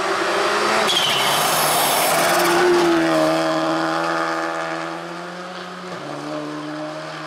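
Škoda Fabia RS Rally2 rally car at full throttle on gravel: the engine note changes about a second in, holds a high steady pitch loudest around three seconds in, then steps down about six seconds in as it fades away. A hiss of sliding tyres and sprayed gravel comes as it passes.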